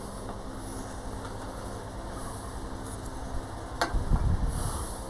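Workshop handling noise: a sharp click about four seconds in, then a brief low thump and rumble, over a steady low hum.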